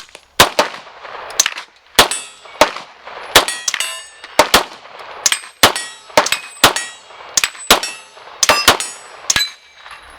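Gunfire at an outdoor range: about twenty sharp shots at uneven spacing, from several guns firing at once. Several shots are followed by a brief high ping of bullets striking steel targets.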